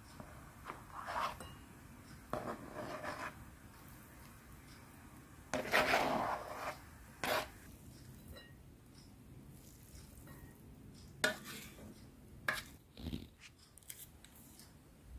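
A spoon scraping and tapping against a bowl as chopped ingredients and cooked rice are tipped in: irregular short clatters and scrapes, the longest and loudest about six seconds in, with a few sharp clicks near the end.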